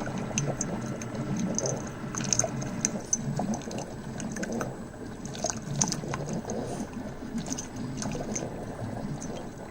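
Coffee maker dispensing hot water into a measuring cup, with irregular spitting and clicking as it brews. This is a clean-water flush run after descaling with white vinegar.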